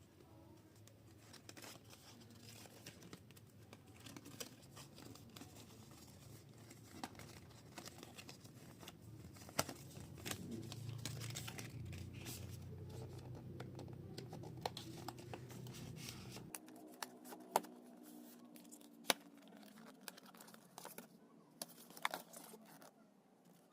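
Packaging being handled and torn open: tearing and crinkling of wrapping, with many scattered clicks and taps. A low background hum drops out suddenly about two-thirds of the way through.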